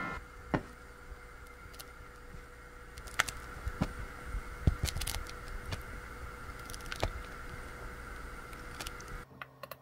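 Wooden spatula stirring a thick, simmering corn-and-cream mixture in a pan, with scattered light taps and scrapes against the pan over a steady faint hum. The sound cuts off shortly before the end.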